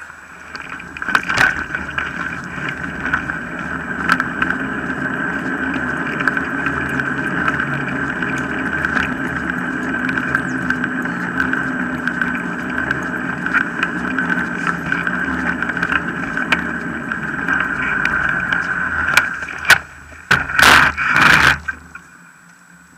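Wheels of a dog-pulled mushing rig rolling over a tarmac path: a steady rumbling hiss with scattered knocks from bumps. Near the end come a few loud clattering scrapes as the rig comes to a halt.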